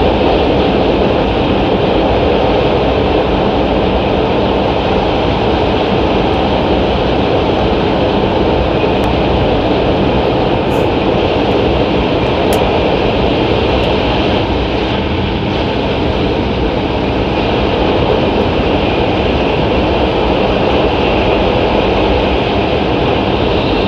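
Steady running noise inside the cabin of an E5 series Shinkansen car at speed: an even rumble and rush from the wheels, rails and air.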